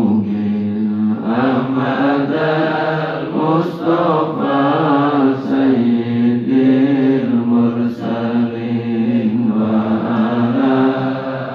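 Islamic devotional chanting in long, held melodic phrases with brief breaks between them.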